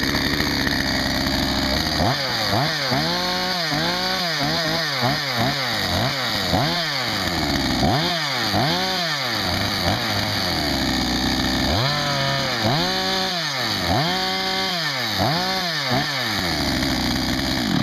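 Two-stroke chainsaw, a Chinese-made copy of a Husqvarna design with a damaged clutch and sprocket, idling and then revved in quick blips about a dozen times, each rising and falling in pitch, with a short idle between two runs of revving. The sound stops abruptly at the end.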